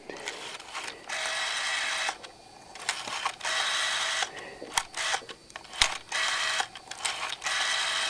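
Rotary dial in the handset of a 1967 Northern Telecom Contempra telephone being turned and let go four times. Each spin back runs as a steady whir lasting up to about a second, with sharp clicks of the finger wheel in between.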